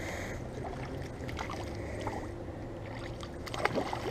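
A hooked trout splashing and thrashing at the water's surface as it is reeled in to the bank, a quick run of splashes starting about three and a half seconds in.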